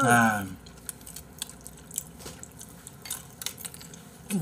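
A person's wavering vocal note slides down and stops about half a second in. Then comes a meal at the table: scattered light clicks of chopsticks and tableware, with chewing.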